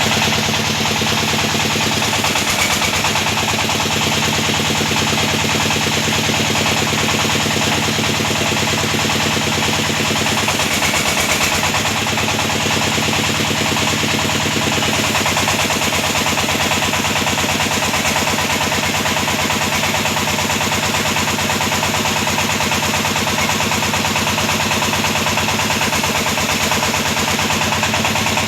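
Engine of a water-well drilling rig running steadily, with a fast, even pulsing.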